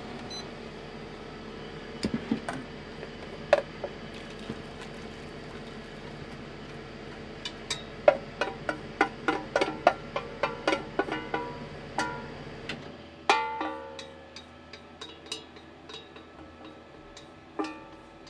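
Chopsticks tapping and scraping against a stainless steel saucepan as soup is poured into a bowl: irregular sharp clinks, some ringing briefly, thickest from about eight seconds in. A steady hum from the induction cooktop stops about two-thirds of the way through.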